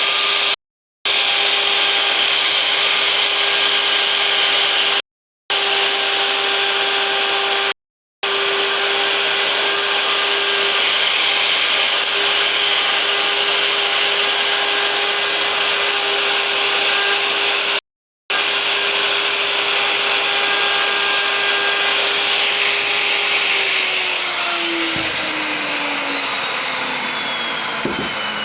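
CNC router spindle running with a steady high whine while its bit cuts wood, the rough noise of the cutting under it. About 23 seconds in, the whine starts falling steadily in pitch as the spindle winds down.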